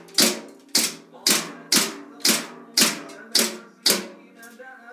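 Green gas BB pistol firing a rapid string of about nine shots, roughly two a second, each a sharp crack.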